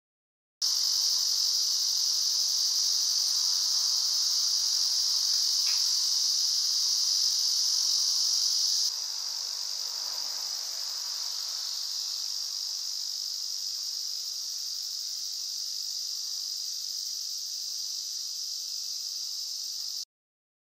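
Steady, high, even chorus of late-summer insects calling without a break. It steps down a little in level about nine seconds in and cuts off suddenly just before the end.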